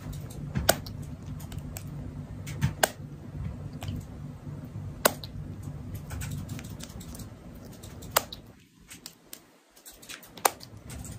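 A cat purring in a low, steady rumble that stops about eight and a half seconds in, with a few sharp clicks scattered over it.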